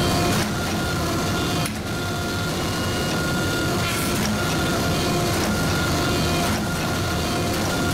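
16-ton hydraulic forging press running under load: a steady mechanical hum from its motor-driven hydraulic pump, shifting in tone a few times as the control lever is worked and the ram presses hot steel.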